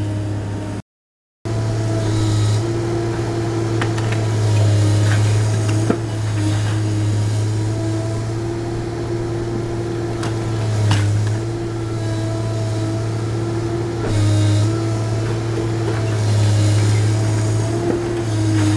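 Excavator's diesel engine and hydraulics running under load, swelling and easing as the demolition and sorting grapple works, with a few sharp knocks and clatter of brickwork breaking and falling. The sound drops out briefly about a second in.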